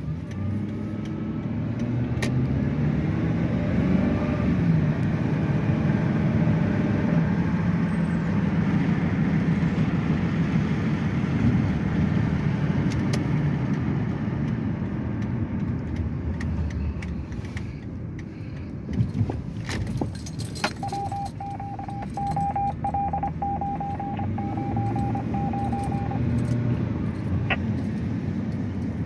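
A car engine running and driving off, its pitch rising and falling as it pulls away and changes speed. Partway through, a vehicle warning chime beeps rapidly for about five seconds.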